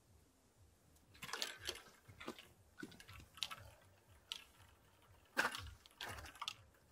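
Grass and reeds rustling and crackling in short irregular bursts as someone moves through them, starting about a second in.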